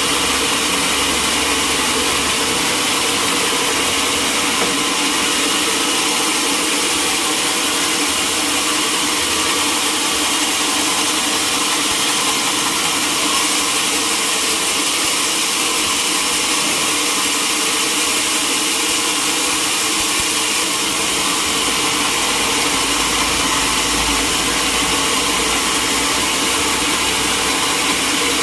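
Sawmill machinery running with a steady, unbroken mechanical drone and hiss.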